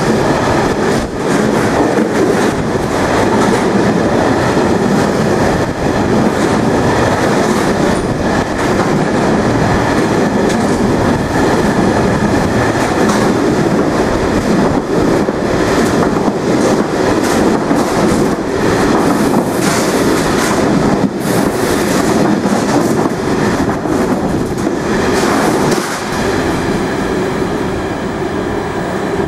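Freight train of loaded open box wagons running through a station at speed: continuous rumble of steel wheels on rail with irregular clacks over the rail joints, easing slightly as the last wagon passes near the end.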